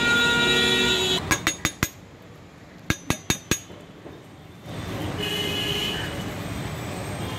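Two quick runs of four sharp metal clinks, about a second apart, from steel cooking utensils knocking together, between stretches of street traffic noise.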